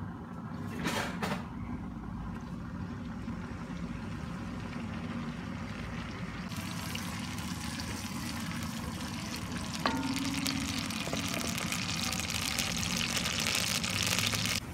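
Sliced onions sizzling in hot oil in a pressure cooker pot, the frying growing stronger and brighter about halfway through as they cook. A spoon stirs them, with a few short clinks against the pot.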